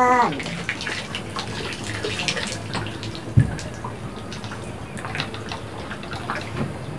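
Water splashing and dripping close by, many small splashes and drips scattered through, with one dull thump about halfway through.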